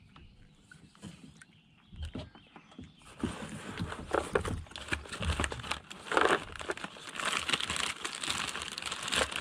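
A clear plastic bag crinkling and rustling as hands dig into it. It starts about three seconds in, after a quieter stretch of small handling sounds.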